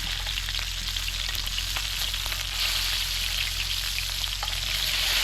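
Pork belly frying in a pan: a steady sizzle with many small crackles and pops of spitting fat.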